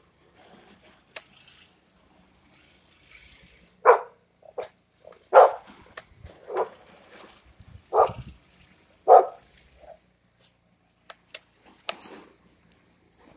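A dog barking, about five loud barks a second or so apart starting about four seconds in, with some softer rustling before and after.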